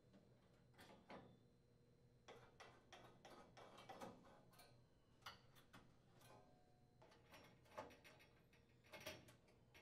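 Faint, scattered clicks and ticks of a Phillips screwdriver turning out the screws that hold a gas oven's sheet-metal burner shield, with small metal-on-metal taps.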